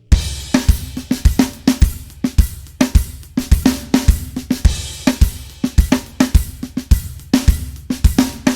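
Recorded drum kit playing a steady beat through a mixing session: kick, snare, hi-hat and cymbals, with sharp hits a few times a second. The drums are heard with the parallel distortion bus switched off, so it lacks the added grit.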